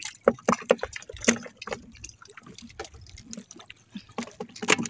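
Irregular drips, small splashes and quick taps as live fish are pulled off a multi-hook fishing handline, with water running off the line and fish.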